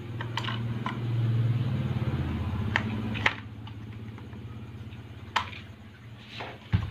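Clicks and knocks of metal parts as an electric fan motor's rotor and end housing are fitted together by hand, over a low steady hum that eases after a sharp knock a little past the halfway point.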